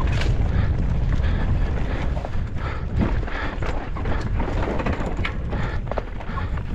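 Wind rumbling on the microphone of a downhill mountain bike at speed, over the clatter of the bike: tyres rolling on loose dirt and stones, with frequent sharp knocks and rattles from the bike over the rough trail.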